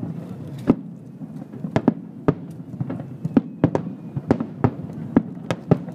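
Fireworks display: a rapid, irregular run of sharp shell bursts, about a dozen bangs, over a steady low rumble.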